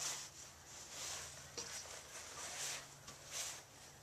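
Faint water trickling into the bowl of a Nelson automatic horse waterer, its valve screw set to a slow flow, in soft swells over a low steady hum.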